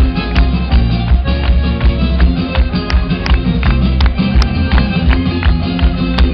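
Live band playing loud music: guitar and trumpet over a steady, regular beat.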